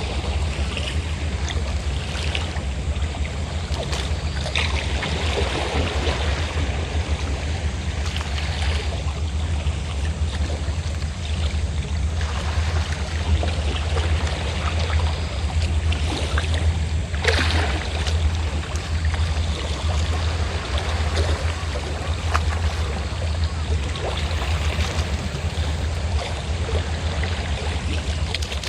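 Fishing boat engine running with a steady low drone, over the wash of sea waves breaking and lapping. A single sharp splash-like crack stands out about two-thirds of the way through.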